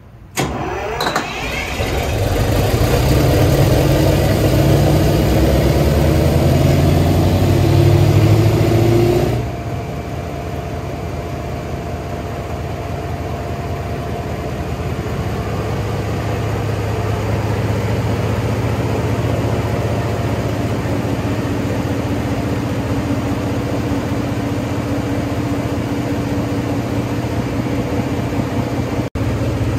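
2014 Cummins 2500 kW diesel generator set starting up: the engine catches almost at once and rises quickly to a loud, heavy run. About nine seconds in the level drops suddenly, and it settles into a steadier, lower run.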